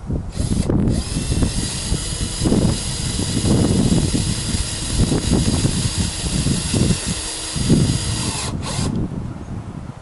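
Cordless drill running at a steady high whine for about eight seconds, held against the metal collar of a gas-fireplace vent cap on an aluminium chimney liner. It starts about half a second in, stops briefly, then runs until it cuts off about nine seconds in.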